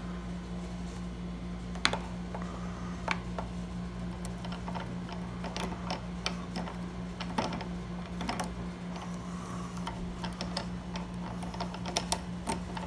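Irregular small metallic clicks and taps from handling a gumball machine's pin-tumbler lock as it comes apart, its tiny pins and springs coming loose, over a steady low hum.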